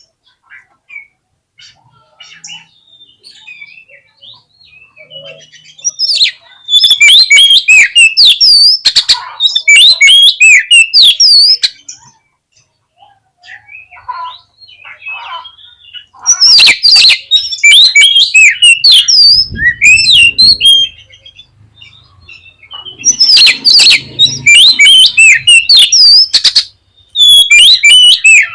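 Oriental magpie-robin (kacer) singing in four loud bursts of rapid, varied whistles and chattering notes, with softer calls between them.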